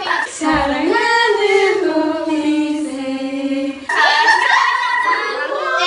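Several young women singing together, holding one long low note for about three and a half seconds, then breaking into a higher held note.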